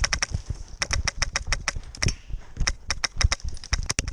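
Airsoft guns firing: sharp pops in uneven runs of several a second, with a short lull about half a second in.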